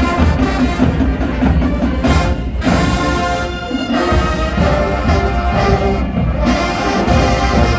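Marching band playing, its brass section of trumpets and trombones loud over heavy low bass and drums.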